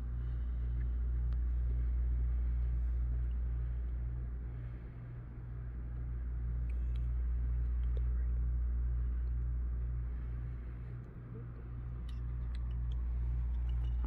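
Low, steady machine hum and rumble with a faint, even pulsing in it. It fades briefly about a third of the way in and again near the end, then swells back.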